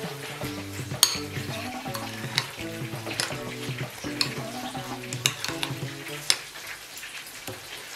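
A metal spoon stirs thick mayonnaise coleslaw in a metal bowl, making a wet, squelchy mixing noise. The spoon clicks against the bowl several times, over soft background music.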